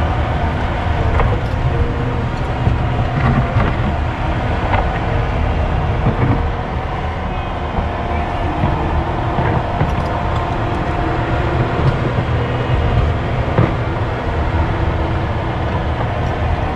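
Excavator's diesel engine running steadily under work, with a hydraulic whine and occasional sharp knocks of the bucket and rock.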